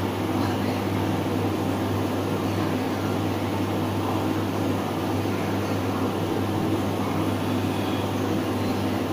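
A steady mechanical hum with a low, even drone, unchanging throughout.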